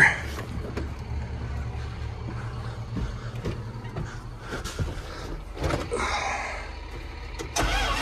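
Cab door and climbing-in sounds on a John Deere 8330 tractor: a few knocks and clunks over a steady low engine hum, which gets louder and deeper near the end.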